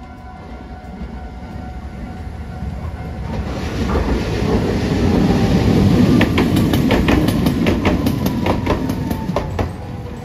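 Hiroden Green Liner articulated tram approaching and passing close by. Its rumble swells to a peak and then eases. A quick run of wheel clicks over the rail joints sounds as the cars go past.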